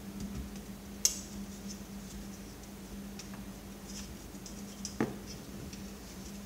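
Sharp clicks and light ticking of plastic and metal parts being handled and pried while a CRT computer monitor is dismantled by hand, the two loudest clicks about a second in and about five seconds in. A steady low hum runs underneath.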